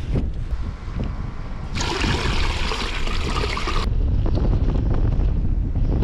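Strong gale-force wind buffeting the microphone: a heavy, uneven low rumble throughout, with a louder rushing hiss from about two seconds in that stops abruptly about two seconds later.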